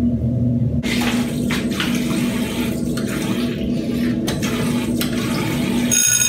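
Water running from a sink tap and splashing in uneven scoops as someone washes their face. The water stops as the tap is turned off near the end, and a ringing phone tone begins.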